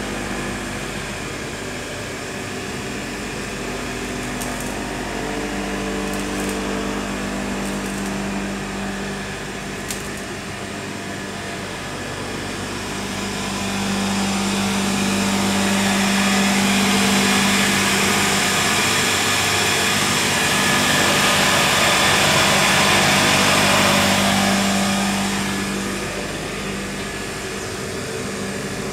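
Cable caterpillar haul-off running: a steady electric-motor hum with a constant low tone under a machinery hiss. About halfway through it grows louder for some ten seconds, then settles back.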